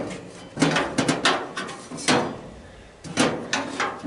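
Sheet-metal panels of an appliance housing knocking and rattling as a hand pulls and works at them: a string of about ten sharp metallic knocks, with a quieter stretch between about two and three seconds in.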